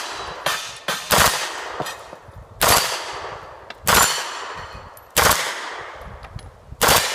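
A carbine fires six single shots at a slow, uneven pace of roughly one a second, the first one lighter. Each shot is followed by a long echo that fades away.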